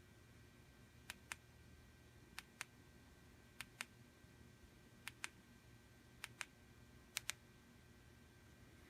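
Six sharp double clicks, a pair a little over a second apart, from the push buttons of a PLX Luxor LED flashlight being worked in turn.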